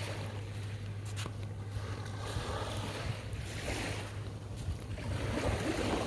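Small waves washing gently onto a sandy beach in soft swells every second or two, the last one the loudest, over a steady low hum.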